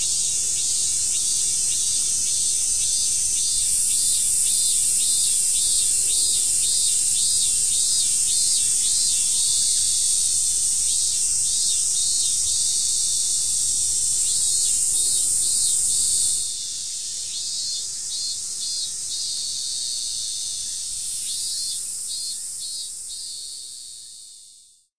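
Chorus of cicadas: a continuous high shrill with a rhythmic pulsing call repeating under it. The sound changes abruptly and drops slightly about two-thirds of the way through, then fades out at the end.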